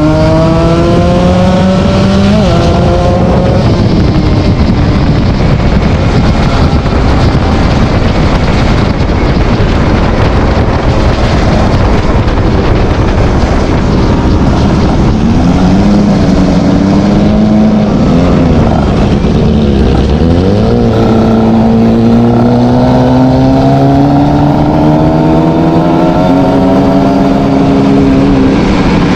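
ZX 300 R motorcycle's exhaust while riding: the engine note rises, breaks off at a gear change about two seconds in, runs rougher through the middle, wavers up and down, then climbs steadily under acceleration over the last several seconds.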